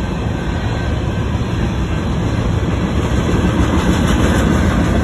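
Freight train's tank cars and covered hopper cars rolling past close by, their steel wheels running on the rails in a steady, loud noise.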